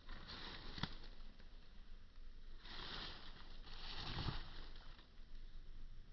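Three bursts of rustling noise, in the first second, around three seconds in and around four seconds in, over a steady low rumble.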